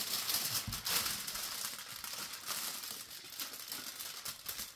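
Aluminium foil crinkling and crackling as hands fold and crimp it tightly into a packet, in irregular bursts of rustle.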